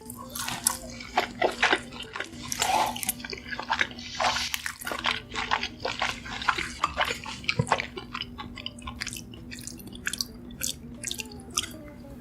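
Close-up wet chewing and eating sounds: many short sharp mouth clicks and smacks, with a faint steady hum beneath.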